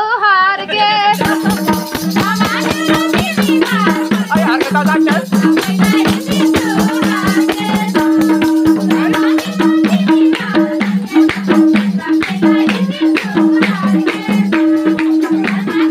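A woman singing briefly, cut off about a second in by upbeat Nepali folk dance music: fast percussion with a rattling, shaker-like sound, a repeating pattern of held low notes, and singing over it.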